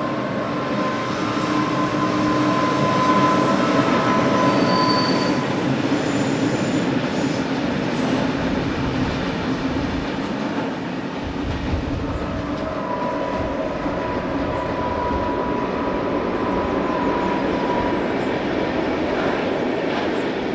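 Freight train of tank wagons hauled by a Renfe class 251 electric locomotive running along the mountain line: a steady rumble of wheels and wagons. A high whining tone sounds over it for the first few seconds, fades, and returns for several seconds in the second half.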